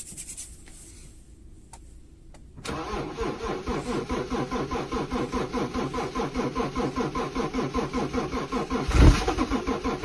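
A vehicle engine being started in cold weather. A few faint clicks come first, then about two and a half seconds in the engine turns over into a steady, rhythmic chugging. A loud low thump comes near the end.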